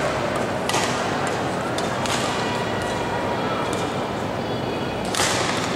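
Busy badminton hall: a steady murmur of spectators' voices, cut by a few sharp smacks of rackets hitting shuttlecocks on nearby courts, the loudest about five seconds in.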